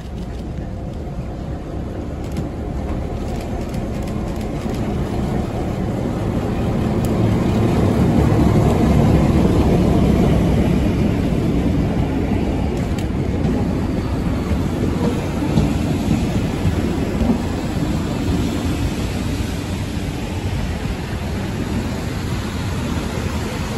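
Train running on the rails: a steady rumble that grows louder to a peak about eight to ten seconds in, then holds, with a few sharp clicks on top.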